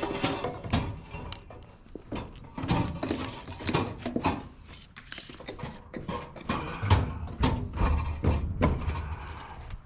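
Irregular knocks, clunks and clicks from handling a stainless steel roll cabinet and its packaging, with heavier low thuds in the later part.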